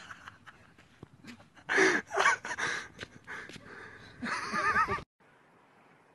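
A person's high, wavering vocal shrieks in two loud bursts, about two seconds in and again near four seconds, that stop abruptly at a cut about five seconds in, leaving only faint background hiss.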